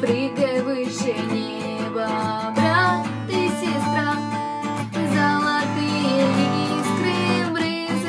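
Acoustic guitar strummed by hand, playing chords in a steady rhythm as a song accompaniment.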